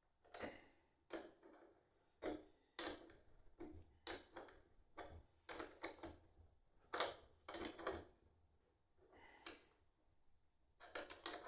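Faint, irregular clicks and clinks, a dozen or so, of small metal parts as nuts and washers are handled and threaded by hand onto the studs of a 250-amp fuse and its copper busbars.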